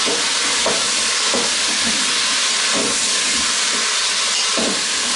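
Onions, potatoes and butternut squash sizzling in the hot bowl of a Cookeo multicooker set to brown, a steady frying hiss. Occasional short scrapes come as the vegetables are stirred.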